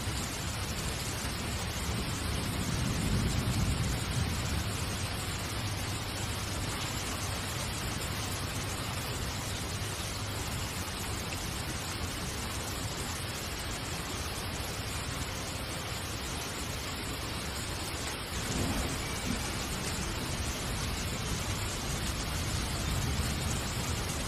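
Steady hiss-like noise, like rain or a noisy recording, with a low rumble swelling briefly about three seconds in and again about eighteen seconds in.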